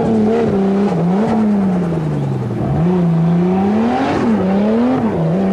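Toyota Land Cruiser 4x4 pickup's engine running hard off-road, its pitch rising and falling as the revs change, with several sharp dips.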